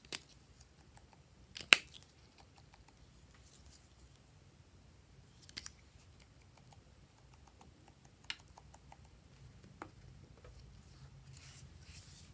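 Sharp clicks and snaps of small hard plastic pieces being pulled apart and handled, about five in all, the loudest about two seconds in. Soft rustling near the end.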